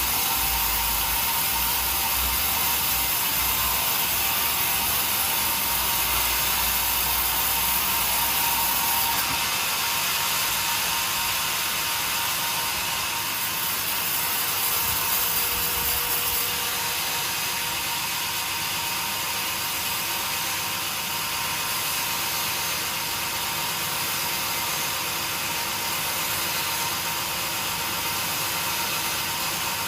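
Sawmill machinery running steadily while a saw cuts timber: a constant dense hiss with a faint steady hum underneath. The hiss shifts slightly about a third of the way in and again about halfway.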